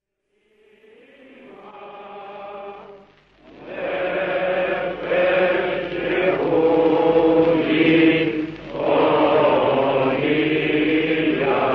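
Chanted singing as the song's intro: a voice fades in on a held note, then from about three and a half seconds in a fuller chanted passage sounds over a steady low bass.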